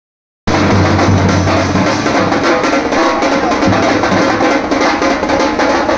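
Live dhol-tasha drumming: fast, dense strokes on tasha drums over the deep beat of large dhol barrel drums, starting about half a second in.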